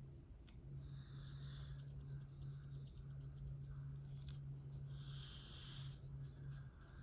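Long fingernails scratching through a dandruff-flaked scalp: a soft, scratchy crackle of many fine ticks, with fuller rasping strokes about a second in and again near five seconds. A steady low hum runs underneath.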